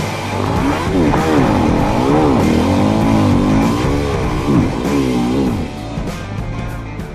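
Dirt bike engine revving up and down again and again as the bike pulls away up the trail, under rock guitar music. The engine sound thins out near the end.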